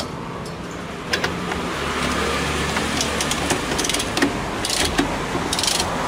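A T-handle 10 mm socket wrench working the bolts on a washing machine's motor bracket, giving scattered metallic clicks and scrapes. The bolts are being loosened so the worn drive belt can be slackened and removed. A steady low rumble runs under it from about two seconds in to about four seconds in.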